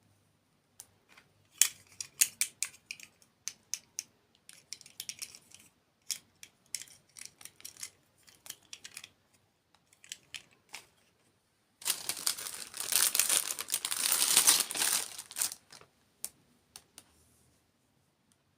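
Close-miked crinkling and crackling: scattered sharp clicks and short crackly patches, then a denser, louder crackling run of about three and a half seconds past the middle, before it trails off into a few clicks.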